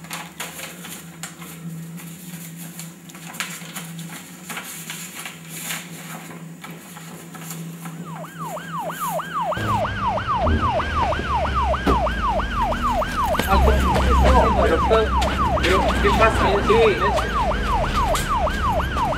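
A low hum with scattered clicks, then about eight seconds in a police car siren starts up in a fast yelp, about three rising-and-falling sweeps a second, over the low rumble of a car pulling up.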